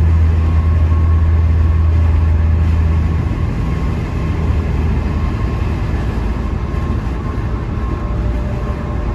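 Steady road noise inside a car driving at expressway speed close to a semi truck, with a deep low drone that is strongest for the first three seconds and then eases.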